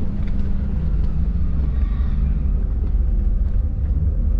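Holden VL Commodore's RB30 straight-six engine running steadily with a low rumble.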